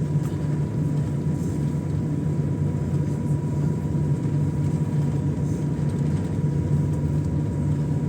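Steady low hum of an airliner cabin, with a faint thin whine held above it.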